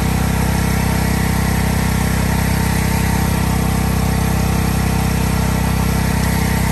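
A motor-driven machine running steadily at a constant speed: a loud, even, low hum with a fine regular pulse and no change in pitch.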